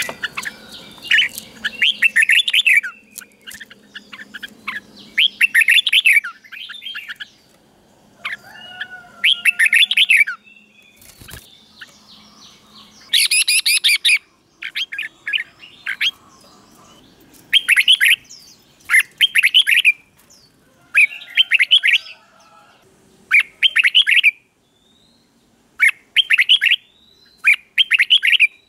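Red-whiskered bulbul singing: short, quick warbling phrases, one every second or two, with brief pauses between them.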